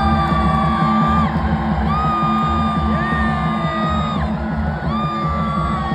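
Loud music with a steady beat, with long drawn-out yells or sung notes over it, each rising in, held about a second and falling away, several times.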